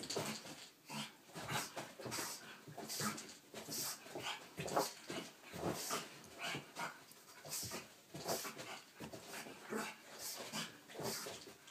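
A pug's short, noisy breaths repeating about two a second, with dog whimpering sounds mixed in.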